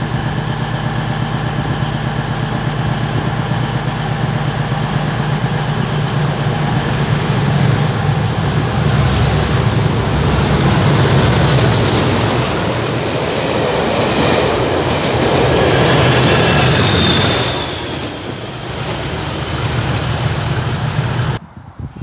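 Colas Rail Freight Class 37 diesel locomotive, its English Electric V12 engine running steadily as it passes close by, with the noise of the train swelling about halfway and high squeals from the wheels or brakes. The sound cuts off suddenly near the end.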